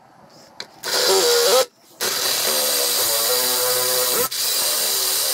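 Electric hand drill boring a twist bit into the table saw's metal top to enlarge a pilot hole for tapping. The motor gives a short burst about a second in, then runs steadily under load from about two seconds, with a brief let-up of the trigger near the end.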